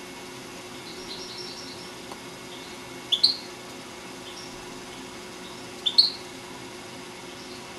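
Caged European goldfinch singing: soft high twittering notes about a second in, then two loud, short, sharp rising chirps about three and six seconds in.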